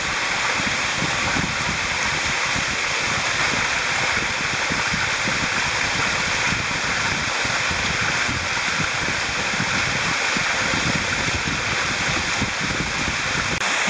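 Small canyon waterfall pouring down a rock chute into a pool: a steady rush of water.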